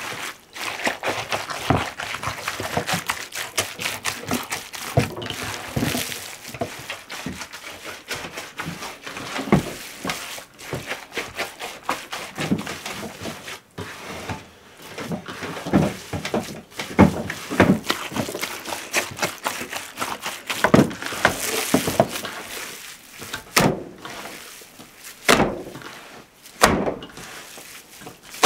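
Hands kneading, squeezing and slapping minced meat mixed with diced fat in an enamel basin: irregular wet squelching and slapping, with a few louder slaps in the second half.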